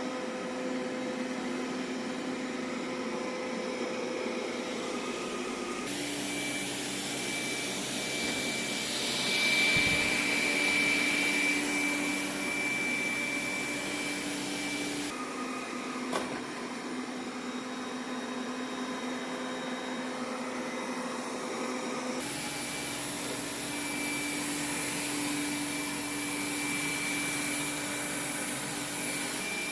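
Xiaomi budget robot vacuum cleaners running, a steady suction-fan whine and motor hum that changes tone abruptly at three points. There is a single light knock about sixteen seconds in.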